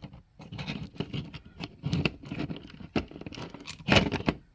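Small clicks, taps and rustles of hands fitting greased steering parts together, with one louder knock about four seconds in as a part is pushed into place.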